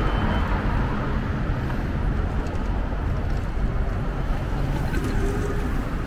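City street ambience: a steady rumble of passing traffic with general outdoor noise.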